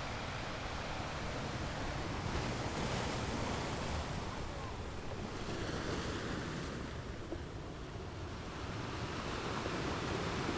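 Sea surf washing ashore, swelling and falling back, with wind blowing across the microphone.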